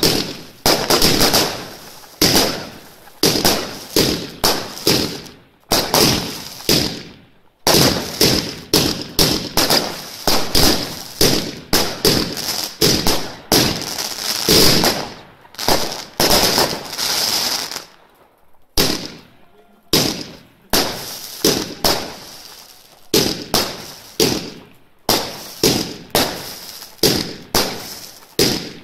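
Consumer fireworks battery, three cakes chained to fire one after another, shooting a fast string of shells whose bouquet bursts bang loudly, shot after shot, with a brief lull about two-thirds of the way through.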